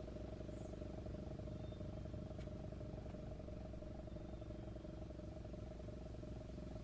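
ACA Banshee 115 electronic outdoor warning siren sounding the Attack signal: one steady tone with a rapid flutter running through it.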